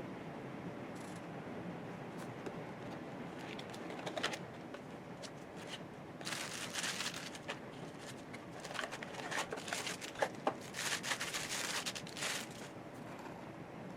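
Packaging being handled, with two bursts of rustling and crinkling and scattered small clicks and taps.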